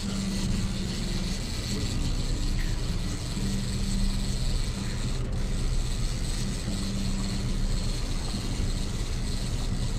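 Fishing reel being cranked in stretches, its gears whirring and clicking as a small hybrid striped bass is reeled in, over a steady low hum.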